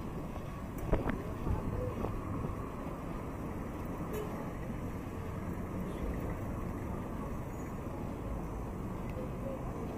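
Street traffic noise, a steady low rumble of passing cars, with a couple of light knocks about a second in.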